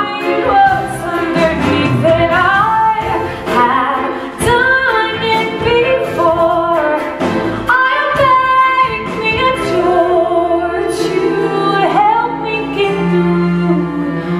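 A woman singing a musical-theatre song over instrumental accompaniment, with a low note held near the end.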